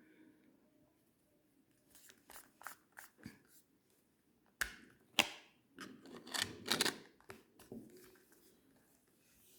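Handling noise close to the microphone: a series of sharp clicks and short scraping rustles. Two loud clicks come a little before halfway, followed by a cluster of scrapes. No ringtone is playing.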